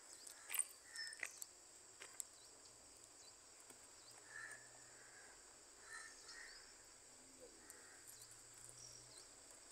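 Near silence outdoors: a faint, steady high-pitched insect drone, like crickets, with a few soft clicks in the first couple of seconds.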